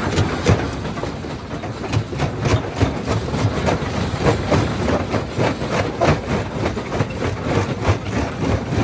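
Quarry primary jaw crusher running, with a steady low rumble and a rapid, irregular run of knocks and cracks as rock is broken between the jaws.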